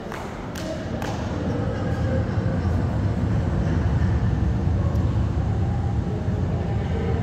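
A low rumble from the immersive exhibit's sound system swells up about a second in as the projection comes up, then holds steady, with faint murmur of visitors' voices in the room.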